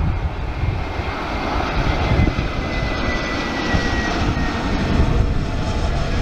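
Airbus A319's IAE V2500 jet engines at approach power as the airliner passes low on final approach with gear down: a loud, steady rumble with a thin high whine that slides slowly down in pitch around the middle.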